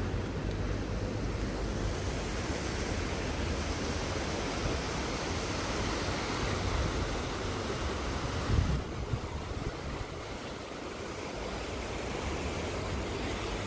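Shallow, fast mountain river rushing over stones in a walled channel, a steady rushing noise, with one brief low thump a little past the middle.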